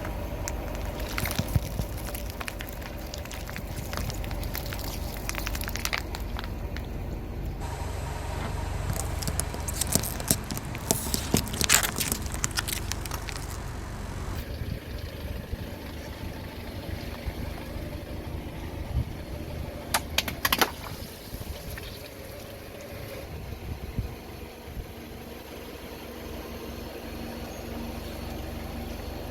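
A car's tyre rolling over and crushing objects, with spells of crackling and sharp cracks over the low running of the car's engine; the densest crackling comes about a third of the way in, and two sharp cracks come past the middle.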